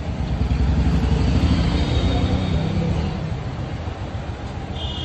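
Motor vehicle engine running close by, a low rumble that swells over the first couple of seconds and then eases off.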